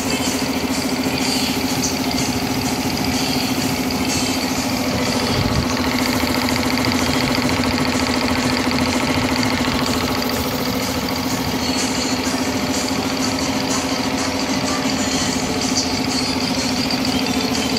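Belt-driven 3 HP two-cylinder V-type piston air compressor with a single-phase electric motor running steadily, pumping air into its 250-litre tank, with a constant hum.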